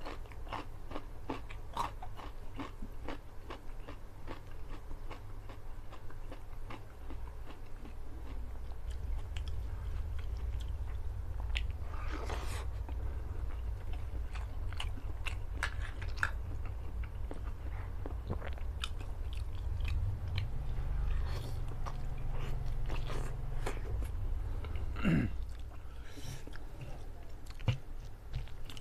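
Close-miked chewing and biting of a mouthful of rice and stir-fried water spinach, with many small crunchy, wet clicks, over a low steady hum.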